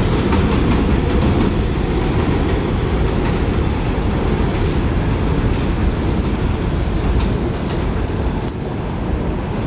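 Eleven-car Kawasaki R188 subway train pulling away along elevated track, its wheels running on the rails as a steady noise that slowly fades as it recedes.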